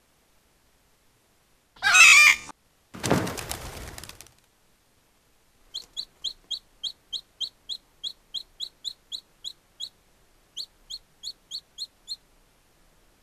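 Cartoon bird sound effects: a loud wavering squawk, then a noisy burst that sinks in pitch. After that comes a long run of short, high, chick-like peeps, each rising, about three a second, with a brief break near the end.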